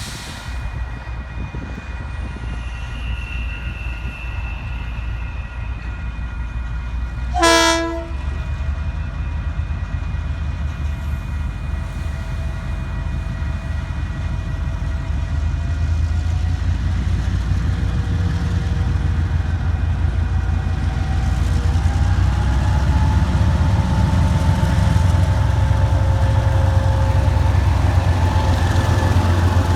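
Diesel-electric locomotives DCP4801 and DXR8007 running, their engines rumbling and growing steadily louder. One short horn blast sounds about seven and a half seconds in, and a whine rises and then holds over the last third.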